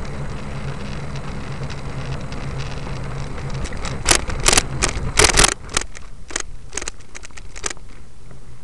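A vehicle running along a road with a steady low engine hum that drops away about halfway through. A run of loud, sharp clicks and crackles comes from about four seconds in to near the end.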